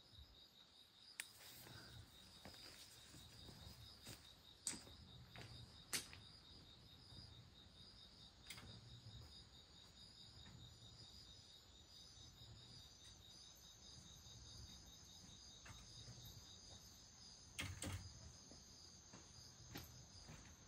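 Faint, steady insect chirping: a finely pulsing high trill that runs on without a break, with a second, higher-pitched insect joining about eight seconds in. A few soft clicks are scattered through it.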